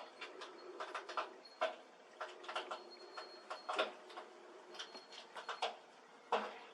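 Irregular light clicks and knocks, several a second and uneven in strength, with a faint high steady tone coming and going.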